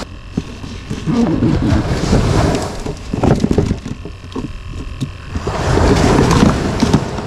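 Wind rumbling on the microphone, with clicks, knocks and rustling from a plastic cooler being handled as a fish is put in.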